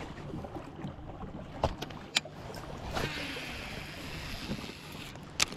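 Small knocks and water sounds around a fishing kayak, with a few sharp clicks and a stretch of steady hiss starting about three seconds in and cutting off a couple of seconds later.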